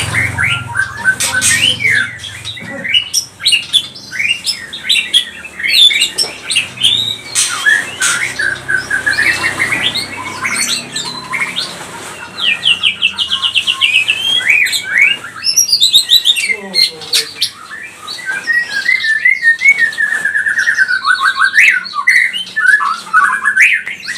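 White-rumped shama (murai batu), a young bird just past its speckled juvenile stage, singing a long, varied song of whistled phrases, chatter and fast repeated-note trills with hardly a break.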